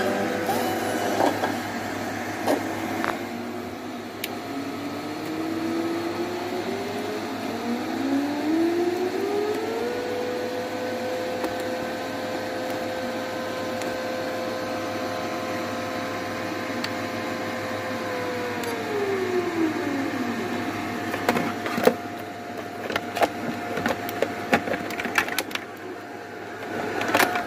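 A cooling fan in the battery-charging station spins up over a few seconds, runs at a steady whine for about ten seconds, then winds back down. A faint steady tone sits underneath, and several clicks and knocks come near the end.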